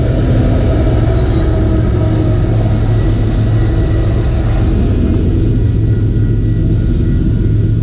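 Freight train of autorack cars rolling past close by: a steady heavy rumble with a hiss of wheels on rail, and faint thin wheel squeal in the background.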